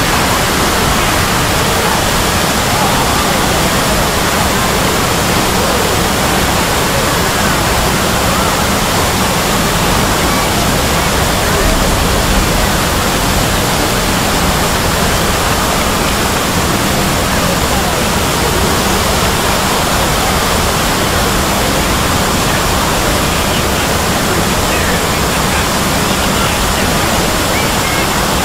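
Hundreds of video soundtracks playing at once, merging into a loud, steady hiss of noise like rushing water, with traces of voices in it.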